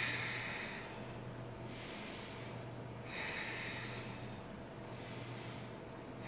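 A woman breathing audibly while holding a yoga pose: airy in-and-out breaths about every one and a half seconds, over a faint steady low hum.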